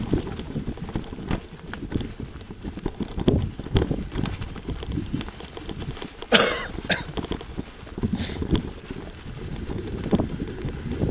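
A bicycle riding fast over a bumpy dirt forest trail: a constant low rumble with irregular knocks and rattles from the bike and the ground. A brief loud swishing noise comes about six seconds in.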